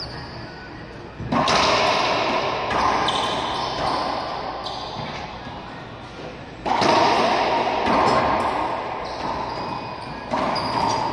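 Racquetball rally: a hollow rubber ball struck by racquets and smacking off the court walls, several sharp hits that ring on in the court's echo, with short high squeaks, likely sneakers on the hardwood.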